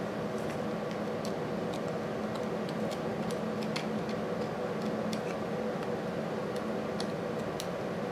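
Light, irregular metal clicks and taps of a screwdriver tip picking at a stuck valve keeper under a compressed valve spring on a 1930 Briggs & Stratton FH engine. A steady low hum runs underneath.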